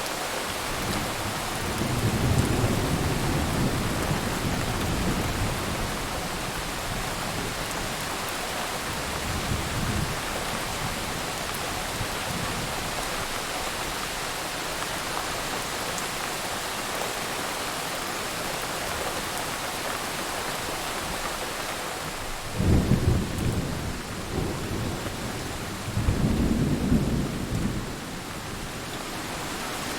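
Thunderstorm: steady heavy rain hiss with several rolls of thunder, a long low rumble early on, a shorter one about a third of the way in, and two louder, sharper rumbles close together near the end.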